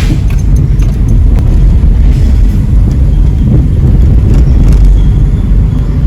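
Car in motion: a loud, steady low rumble of road and wind noise that cuts in suddenly at the start.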